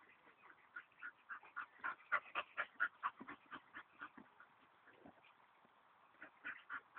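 A dog whining in a quick series of short, high whimpers, about three a second, dying away after about four seconds and starting again briefly near the end: the eager whining of a dog worked up during play.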